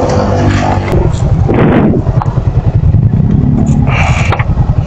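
Motorcycle engine running on the move, a low, rapidly pulsing note, with a short hiss about one and a half seconds in and a brief higher-pitched burst near the end.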